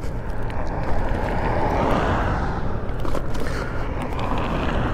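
Wind rush on the microphone and road-traffic noise while riding an electric moped along a busy road. A vehicle swells past about two seconds in.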